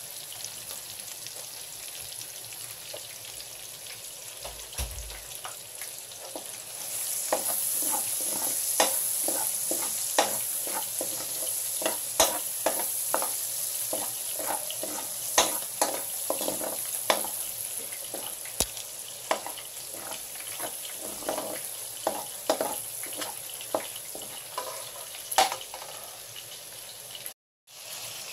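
Minced garlic sizzling in hot oil in a nonstick pan, stirred with a metal spoon that scrapes and taps against the pan many times. The sizzling gets louder about seven seconds in.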